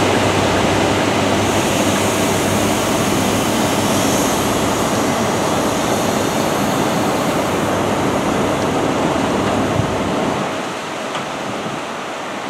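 East Midlands Railway InterCity HST's Mk3 coaches rolling past along the platform: a steady rumble and rush of wheels on rail that eases off about ten seconds in.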